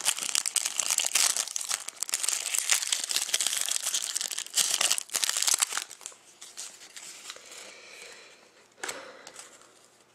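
Foil wrapper of a Panini Rookie Anthology hockey card pack crinkling and tearing as it is ripped open and peeled off the cards, dense and crackly for about the first six seconds. Then it goes much quieter as the cards are handled, with a short rustle about nine seconds in.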